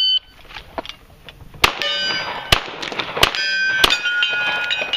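Shot-timer start beep, then about four .45 ACP pistol shots over some two seconds, several followed by the long metallic ringing of struck steel plate targets.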